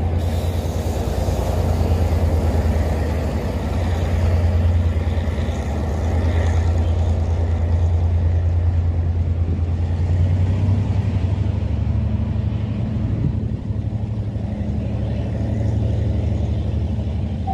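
Diesel train engine running with a steady low drone as the train pulls away down the line.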